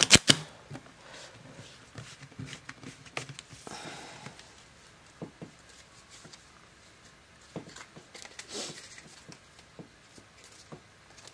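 Tarot cards being riffle-shuffled, a quick run of card edges snapping together right at the start. After that only faint scattered taps and rustles of handling.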